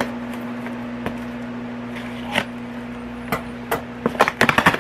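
A mailed package being handled and opened by hand: scattered knocks and taps, then a quick run of clicks and rattles near the end, over a steady low hum.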